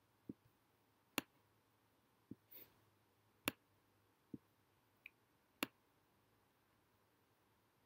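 Computer mouse clicking: about seven single sharp clicks, roughly a second apart, over near silence.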